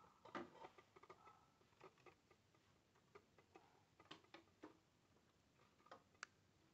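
Faint, scattered clicks and light rustles of sequined fabric being handled and pinned by hand, with a cluster of sharper ticks about four seconds in.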